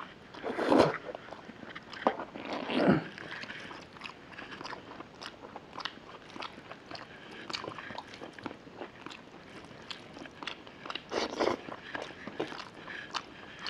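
Close-miked eating of a curried chicken leg with rice: two loud bites about one and three seconds in, then steady wet chewing and lip smacks with many small clicks, and a louder burst of chewing later on.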